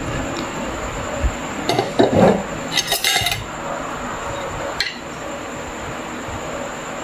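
Metal spoon and fork clinking against a glass bowl and dinner plate during a meal: a few scattered clinks and knocks. There is a duller knock about two seconds in, the sharpest clinks about three seconds in, and a single light click near five seconds.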